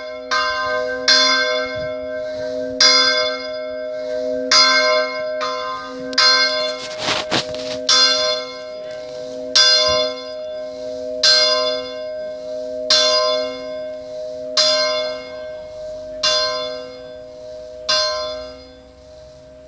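Large church bell ringing, struck at an even pace about every one and three-quarter seconds over its own steady hum. There is a short burst of rushing noise about seven seconds in. The last stroke comes near the end and is left to ring and die away.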